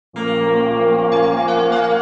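Intro music: a loud, sustained bell-like chord that starts abruptly at the very beginning, with higher tones joining about a second in.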